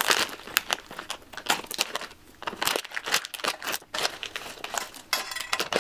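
Plastic candy packet crinkling in irregular crackles as it is pulled open by hand.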